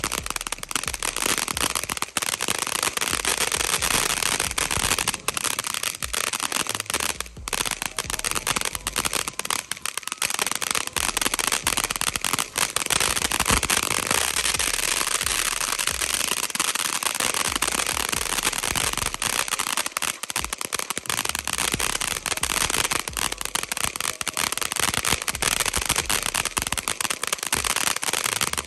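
Consumer ground fountain firework giving off a dense, continuous crackle of rapid tiny snaps, with no big bangs.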